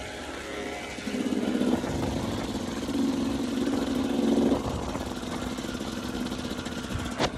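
Yamaha YZ250 two-stroke dirt bike engine running under throttle on the move, its steady high note coming up about a second in and easing off about halfway through, with wind rush over the microphone. A single sharp knock near the end.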